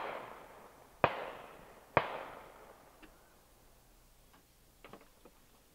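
Three distant shotgun shots about a second apart, each echoing away over the valley, from hunters shooting at thrushes at nearby shooting posts. A few faint clicks follow near the end.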